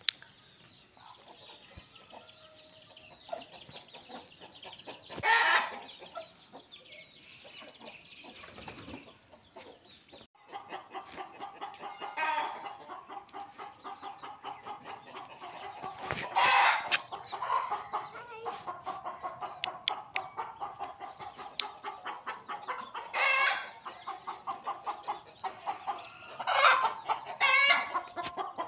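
A flock of domestic chickens clucking. The first ten seconds are quieter, then comes a steady run of rapid clucks, with about six louder calls standing out.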